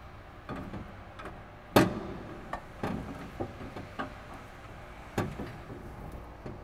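A steel sway bar being fed down through a car's engine bay, knocking and clunking against the surrounding parts: several irregular knocks, the loudest about two seconds in.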